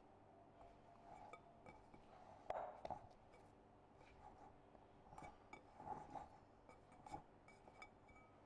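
Faint, scattered clinks and soft knocks of a glass mixing bowl handled and turned on a marble counter, with hands patting bread dough inside it; soft music plays faintly underneath.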